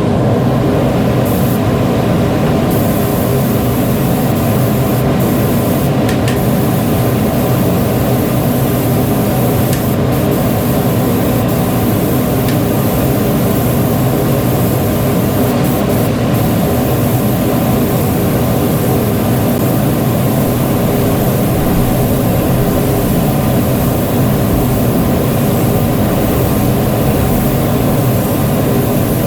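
A machine running steadily and continuously, a dense hum with hiss above it and no pauses.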